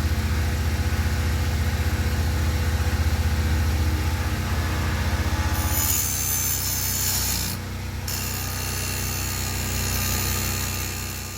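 Chainsaw running under load, cutting through a log, with a hissier cutting noise coming in about six seconds in and the saw easing off near the end.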